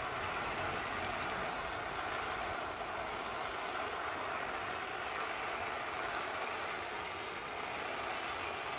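Handheld gas torch burning with a steady, even hiss as its flame chars painted plywood.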